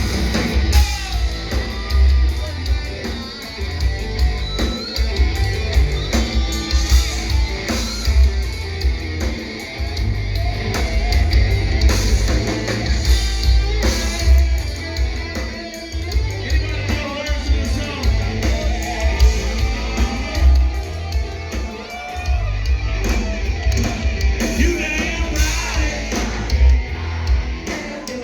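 Live band playing loud rock-style music with heavy bass and drums, with singing and shouting over it.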